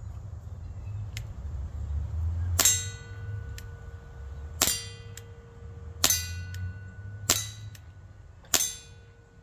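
Five shots from a CO2 Barra Schofield replica air revolver, about one to two seconds apart, each with a metallic ring from a steel target that keeps ringing between shots.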